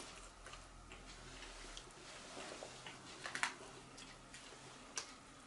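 Quiet eating sounds: a metal fork tapping and scraping on a plate, a few light irregular clicks, the loudest a short cluster a little past the middle and another about five seconds in.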